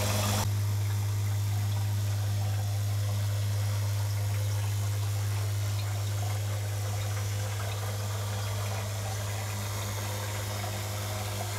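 Recirculating water pump of a hydroponic deep water culture system running with a steady low hum.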